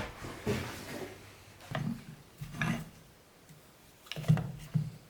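Several separate light knocks and bumps of wood and hand tools being handled and set down on a workbench while a piece of oak is marked out and measured.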